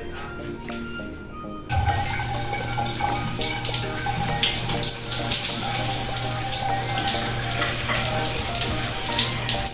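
Water running and splashing steadily, starting abruptly about two seconds in, with a steady low hum beneath it, under background music.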